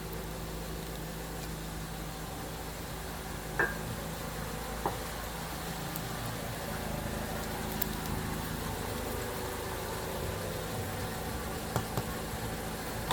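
Steady low hum of a car engine idling, with a few short clicks.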